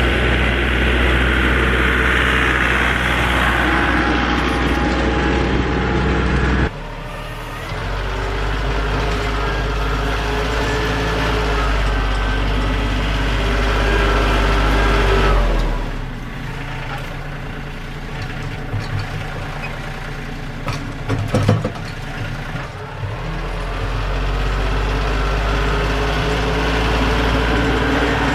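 Tractor engine running steadily while plowing snow, its sound changing abruptly a few times, with a short clatter of knocks about three-quarters of the way through.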